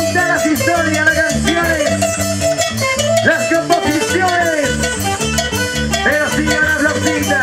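Live band playing Latin dance music with a steady beat: electric guitar, bass, keyboard and drums with timbales.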